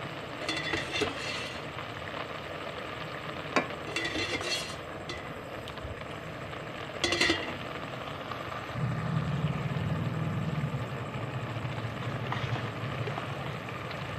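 Ghee going into a steel pot of simmering greens: a steady sizzle and bubbling, with a steel ladle scraping and clinking against the pot three times and one sharp click. A low hum comes in about nine seconds in.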